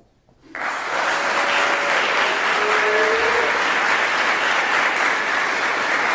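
Audience applauding, starting suddenly about half a second in out of near silence and holding steady.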